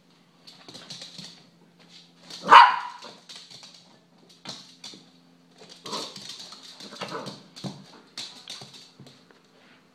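Small dog barking: one sharp, loud bark about two and a half seconds in, then a few quieter barks and yips.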